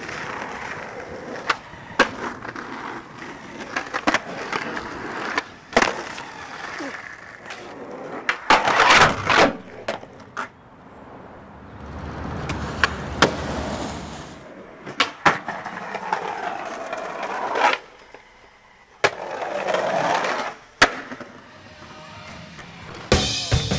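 Skateboard wheels rolling on asphalt and concrete, broken by sharp clacks of the board popping and slapping down on landings, across several short clips. Music with a beat comes in about a second before the end.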